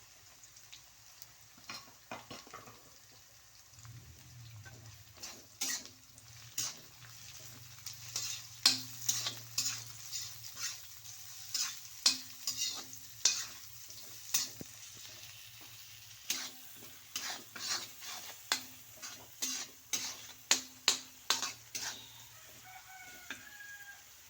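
Stir-frying in a pan: a metal spatula stirs and scrapes, striking the pan in many sharp clicks, over a faint sizzle from the frying food.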